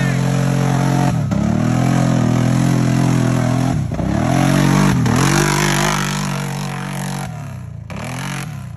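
Can-Am ATV engine revving hard while its tyres spin in deep mud, the revs dropping and climbing back about three times, with a hiss of spraying mud. The engine gets quieter near the end.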